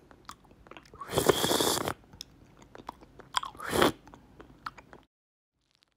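A person eating rice and patin fish in tempoyak sauce by hand, close up: chewing and mouth noises, with a louder noisy stretch about a second in and a shorter one at about three and a half seconds.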